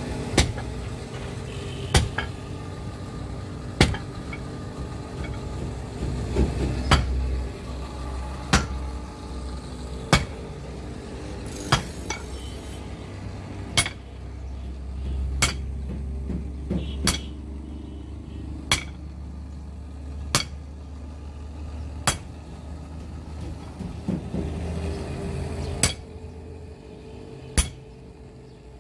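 Hammer blows on metal on an anvil at a slow, even pace, one strike about every one and a half to two seconds, with a steady low hum underneath.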